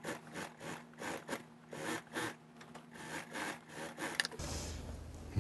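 Dark fur and fabric of a mink vest being rubbed and slid over a sewing-machine table as it is positioned under the presser foot: a string of short, irregular rustling and scraping strokes. A low steady hum comes in near the end.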